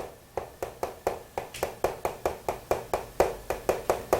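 A quick, fairly regular series of sharp taps, about four a second.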